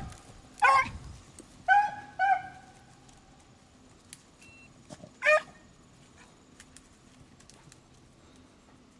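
Beagles baying while they work a rabbit's scent trail. Several short bays come in the first couple of seconds and a single bay follows about five seconds in.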